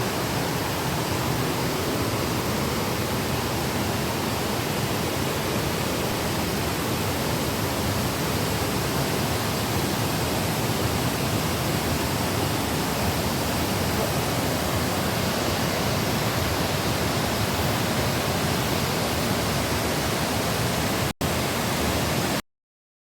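Waterfall: a steady, even rush of falling water. It drops out for an instant near the end, then cuts off abruptly.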